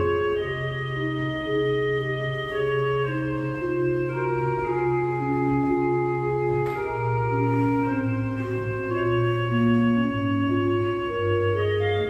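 Church organ playing a slow piece: held chords over a low bass line in long notes that change about once a second, with the upper voices moving step by step.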